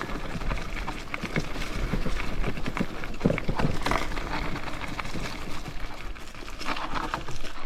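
Crust Nor'easter bicycle rolling over rough trail: a steady noise full of irregular clattering knocks and rattles from the tyres and frame.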